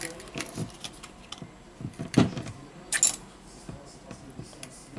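Scattered small clicks and knocks of hands working on an opened Samsung Galaxy Note 9 and picking up metal tweezers, with a louder knock about two seconds in and a sharp click about a second later.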